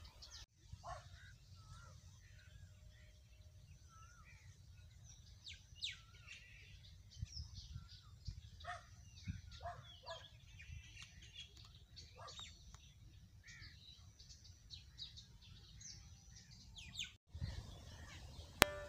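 Several small birds chirping and calling, scattered short chirps and warbling notes, faint over a steady low rumble. The sound drops out abruptly near the end.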